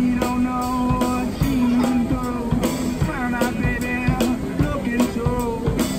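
Street band playing rock music: drum kit hits over a steady bass line, with a guitar or voice melody that bends in pitch.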